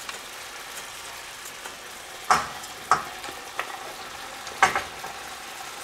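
Chicken pieces sizzling steadily in hot oil in a nonstick skillet, with four sharp knocks and clatters a little over two seconds in as chopped squash and other vegetables are tipped from a glass bowl into the pan.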